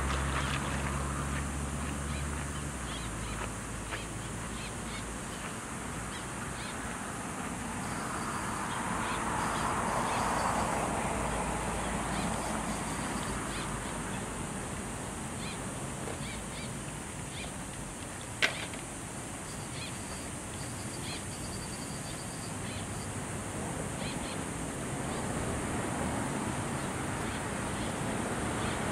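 Steady outdoor background noise that swells and fades twice, with faint scattered chirps and a single sharp click about two-thirds of the way through.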